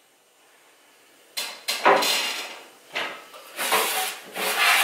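A kitchen wall cupboard door is opened about a second and a half in. Then stacked metal baking tins knock and scrape together as they are pulled off the shelf.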